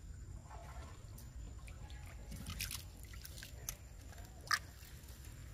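Small splashes and drips of shallow pool water as a wet pig-tailed macaque wades and forages, with one sharper splash or click about four and a half seconds in.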